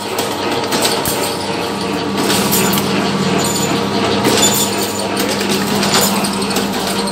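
Electric wire straightening and cutting machine running: a steady motor hum with the rattle of wire feeding through the straightener, and sharp clicks every second or two.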